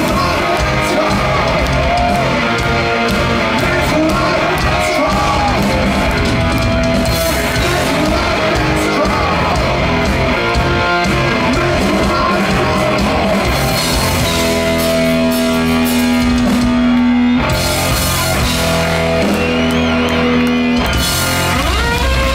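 Heavy metal band playing live: distorted electric guitars, bass and drums, loud and dense, with a singer's voice over the band.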